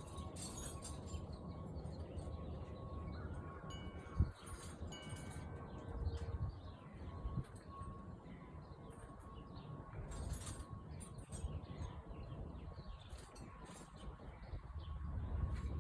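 Faint ringing chime-like tones with scattered bird chirps, and a single sharp click about four seconds in.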